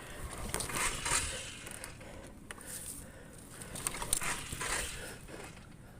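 Irregular crunching and rustling noises, coming and going in short clusters, loudest about a second in and again around four to five seconds in.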